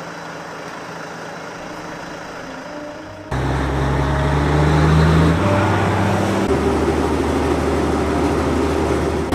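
Berliet T100's big turbocharged diesel engine running, just brought back to life after some thirty years without starting. About three seconds in it gets much louder and deeper, and its pitch rises briefly as it revs.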